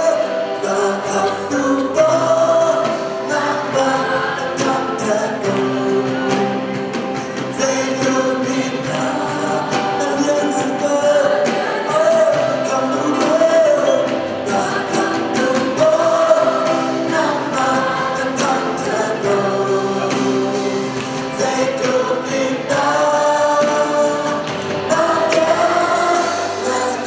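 Live gospel praise song: a band with electric guitars and drums, and many voices singing together.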